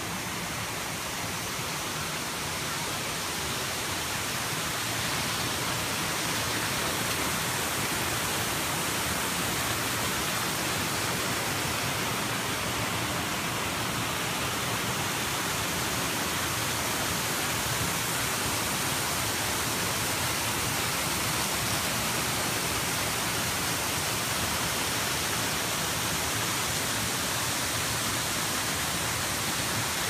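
Steady rushing of a waterfall, growing a little louder over the first few seconds and then holding even.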